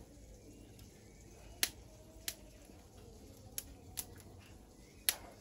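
A few sharp, scattered clicks over a faint background, the two loudest about one and a half seconds in and near the end.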